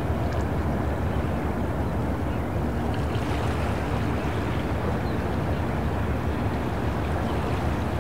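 Sea-port ambience: a steady low rumble of boat engines over the wash of harbour water.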